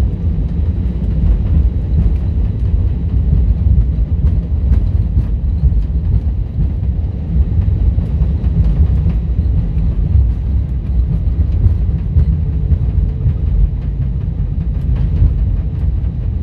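Steady low rumble inside the cabin of an Airbus A320neo rolling along the runway after landing, with a few faint knocks.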